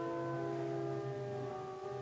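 Organ music playing slow, sustained chords. A new chord comes in near the end.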